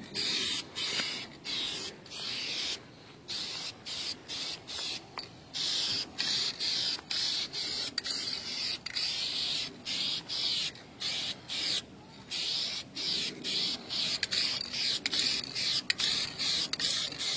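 Aerosol spray paint can spraying in a series of short hissing bursts, longer at first and then quicker, about two a second toward the end.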